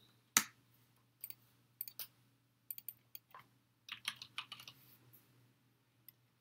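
Typing on a computer keyboard: scattered key clicks, the loudest a single sharp one just under half a second in, with a quick run of keystrokes about four seconds in.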